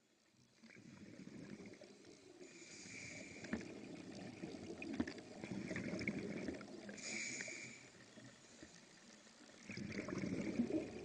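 Watery bubbling and gurgling noise fading in from silence, swelling and dipping, with a few sharp clicks and pops scattered through it; it eases off shortly before the end, then rises again.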